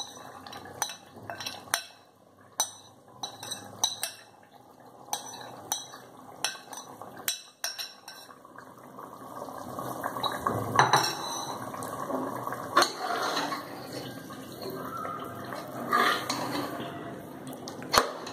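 A utensil tapping and scraping marinated meat out of a bowl into an aluminium pressure cooker, a run of light clinks. From about ten seconds in, a spoon stirring the meat through the tomato paste in the pot, with wet squelching and metal scraping against the cooker's sides.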